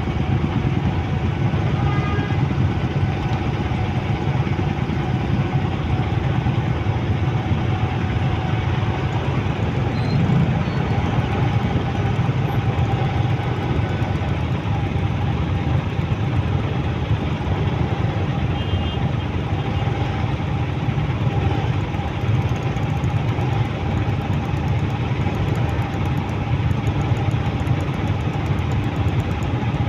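Motorcycle and car engines idling in a stopped traffic queue, a steady mechanical hum.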